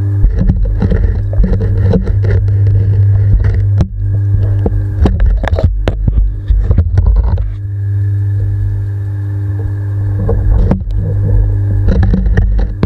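Underwater knocks and scrapes as sturgeons bump and brush against the submerged camera, over a steady low hum. The knocks come in irregular clusters, busiest in the first half and again near the end.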